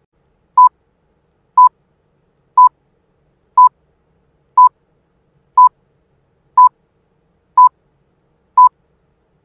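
Countdown timer beeping, one short beep of the same pitch each second, nine in all, ticking off the seconds of the countdown.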